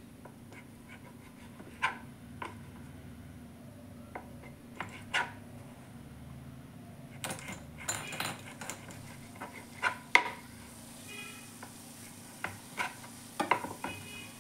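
Kitchen knife cutting slices of white bread on a cutting board: irregular sharp knocks of the blade against the board, clustered in the middle and again near the end, over a faint low steady hum.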